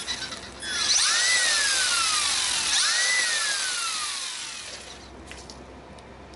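Electric drive motor and gears of a Traxxas LaTrax 1/18 RC truck, run up twice on the bench with the wheels off the ground: each time the whine rises quickly, then falls slowly as the wheels coast down. This is a first power test on a homemade two-cell 18650 Li-ion pack.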